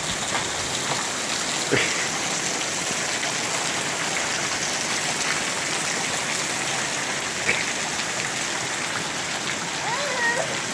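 Hail falling hard, a steady dense hiss of hailstones hitting surfaces, with a couple of sharper clicks as single stones strike. Faint voices come in near the end.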